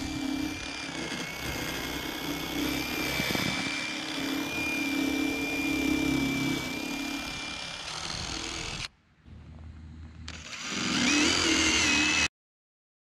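DeWalt XR cordless drill spinning a wire-wheel brush against the corroded steel pivot stud of a rear wiper arm, scrubbing the rust off, with a steady motor whine. It stops about nine seconds in, whines up again briefly near the end, then cuts off abruptly.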